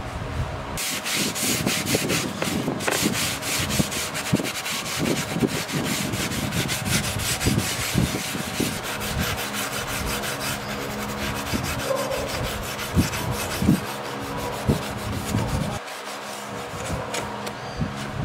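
A sponge scrubbing an old machete's wet steel blade in rapid back-and-forth rubbing strokes. The scratchy strokes start about a second in and grow softer after about ten seconds.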